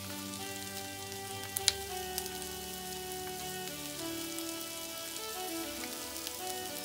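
Onions and chopped vegetables sizzling in butter in a pan, with a couple of sharp pops about one and a half seconds in, under soft background music.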